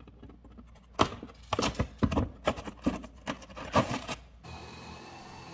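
Cut-out square of drywall being pried loose and pulled out of the wall by hand: a quick run of clicks, cracks and scrapes as the gypsum piece breaks free. It stops sharply near the end, leaving a faint steady hum.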